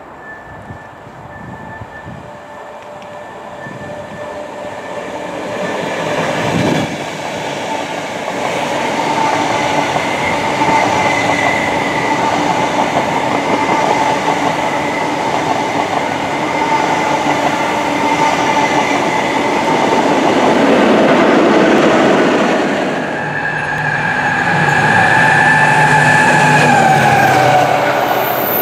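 A Greater Anglia electric passenger train grows louder as it approaches and then rushes past at speed, with a steady whine riding over the wheel and rail noise. About 24 seconds in, the sound shifts as a Freightliner container train comes through, its locomotive tones dropping slightly in pitch as it passes.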